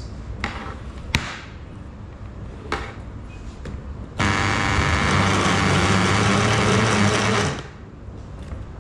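Countertop blender with a stainless steel base running for about three and a half seconds, blending fruit and milk into a smoothie. It starts suddenly a little after four seconds in and winds down near the end. Before it there are a few sharp clicks as the jar is handled, the loudest about a second in.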